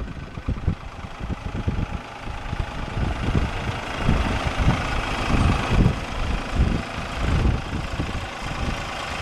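A 2005 Case IH JX1075C tractor's 2.9-litre three-cylinder diesel engine running at low speed as the tractor drives slowly.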